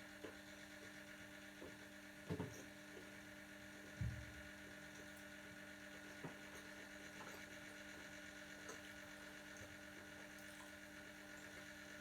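Quiet, steady electrical hum with a few soft knocks and clicks; the loudest knocks come about two and four seconds in.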